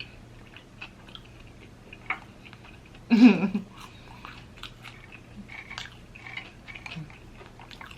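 Person chewing and biting food, with small scattered wet clicks and crackles. A short voiced sound about three seconds in.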